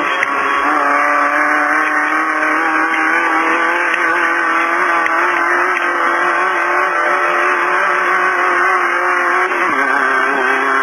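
Beetle-based off-road race car's engine running hard at steady high revs over rough ground noise. Near the end the pitch dips briefly, then climbs again.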